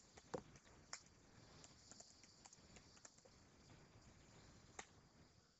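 Near silence with a few faint computer keyboard clicks scattered through it, one a little louder about a third of a second in.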